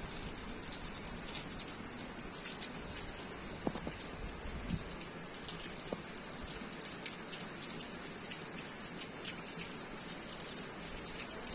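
Steady monsoon rain falling, a constant hiss with scattered drips and ticks of drops striking surfaces.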